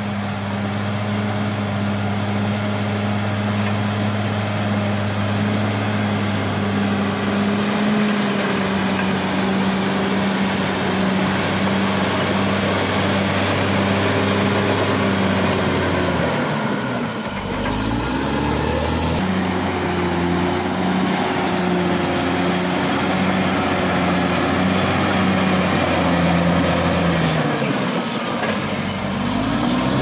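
Caterpillar D6R XL bulldozer's diesel engine running steadily as the dozer pushes and grades dirt. The engine note dips in pitch and comes back up about halfway through and again near the end.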